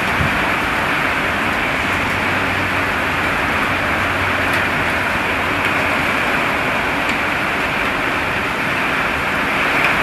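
Torrential rain pouring down in a severe thunderstorm, with gusting wind, making a steady, even rush.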